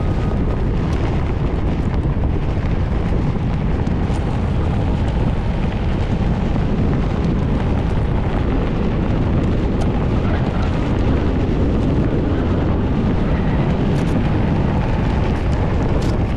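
Steady low wind rumble buffeting the microphone while a Onewheel rolls along a dirt and gravel trail, with a few scattered small ticks from gravel under the tyre.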